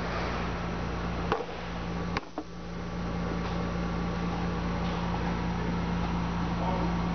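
Running JEOL JSM-6610 scanning electron microscope heard from inside its cabinet: a steady low hum over an even rush of machine noise. Two short sharp clicks come about a second and a half in and just after two seconds.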